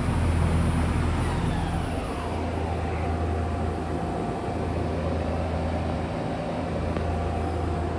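Okuma LB3000 CNC lathe running under power: a steady electrical hum, with a motor whine that glides down in pitch about two seconds in and then holds a steady tone.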